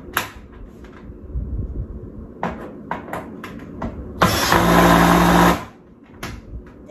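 Cordless drill running for about a second and a half as it drives a screw into the corrugated steel panel of a raised garden bed; this is the loudest sound and stops abruptly. Before it come scattered clicks and knocks of the drill and metal panels being handled.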